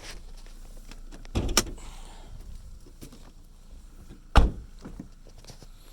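Two knocks: a double knock about a second and a half in, then a single sharper, louder one about four and a half seconds in, with faint handling noises between.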